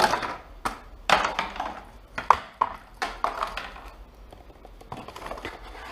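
Cardboard packaging and a plastic-wrapped external hard drive being handled: a string of short rustles, scrapes and knocks as the drive is lifted out of its box and set down on the bench.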